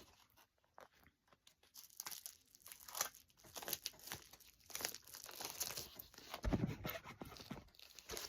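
A mail package being opened by hand: the wrapping tearing and crinkling in scattered faint rustles after a near-silent first two seconds, with a louder thump about six and a half seconds in.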